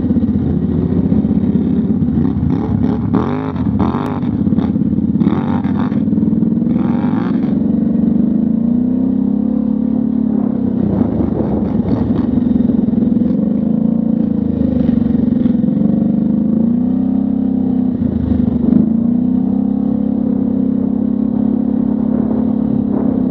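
ATV V-twin engine running under way, heard from on board, its pitch rising and falling as the throttle is worked. A few brief bursts of rushing hiss come in the first several seconds.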